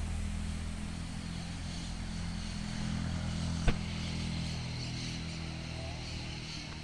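A motor running steadily with a low hum, and a single sharp click a little past halfway.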